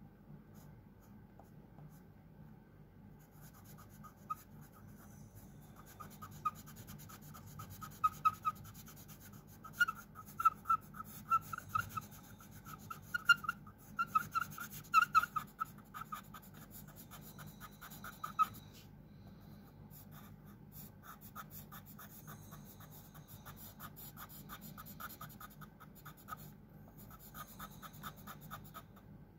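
Fine-tip pen scratching on paper in quick short strokes while inking a drawing; the strokes come thick and loud from about six seconds in, stop near eighteen seconds, and go on more softly after a pause. A faint steady low hum sits underneath.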